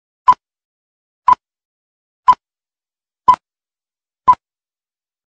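Film-leader countdown beeps: five short, identical beeps, one each second, ticking off the countdown.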